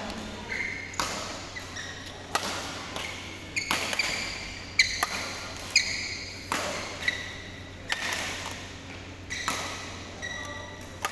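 Badminton rally: rackets strike a shuttlecock with sharp smacks roughly once a second, some louder and some fainter. Short high squeaks from shoes on the court floor come between the hits.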